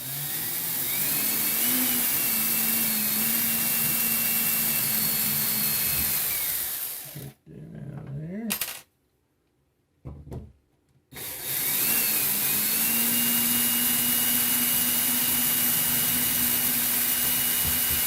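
Power drill backing out the screws of a wall outlet, its motor whining steadily in two long runs of about seven seconds each, with a short burst between them.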